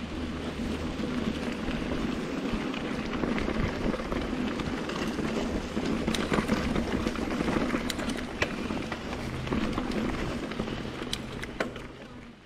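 Mountain bike rolling fast along a rough dirt trail: steady tyre noise over dirt and stones, with scattered sharp clicks and rattles from the bike, dying down near the end.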